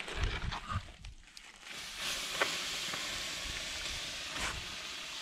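Water poured onto hot campfire coals, hissing and sizzling steadily as the fire is put out. The hiss starts about two seconds in.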